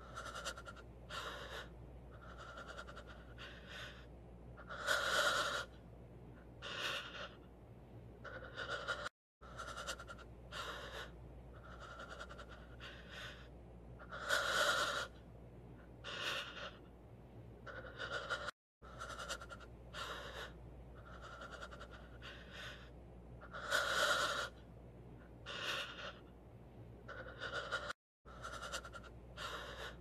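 Heavy-breathing meme audio: a person panting in short, quick breaths, with one longer, louder gasping breath in each pass. The same recording repeats about every nine and a half seconds, with a brief cut to silence between repeats.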